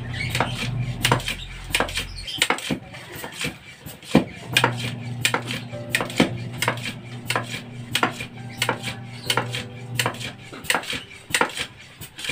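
Irregular sharp metallic clinks and knocks, about two or three a second, from metal parts being worked by hand with a long steel rod. A steady low hum runs beneath, dropping out for about two seconds near the start.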